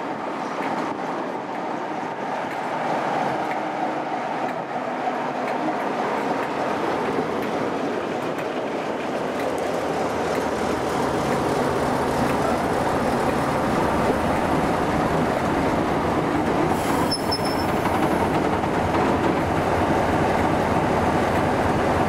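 Class 47 diesel locomotive running light engine, its engine and wheels growing steadily louder and deeper as it draws closer. A brief high squeal comes about seventeen seconds in.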